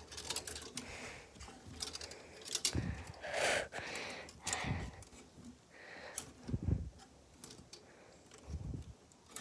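Plastic clothes hangers clicking and scraping along a closet rod as garments are pushed aside, with fabric rustling and a few dull bumps.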